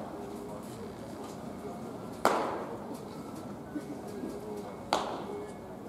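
A baseball smacking into a leather glove twice, about two and a half seconds apart, each sharp pop with a short echo.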